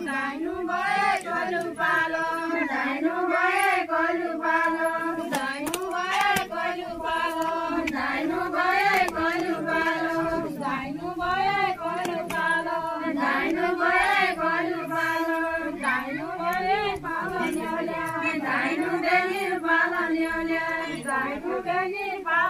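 A group of women singing a deuda folk song together, unaccompanied, the melody rising and falling in short repeated phrases.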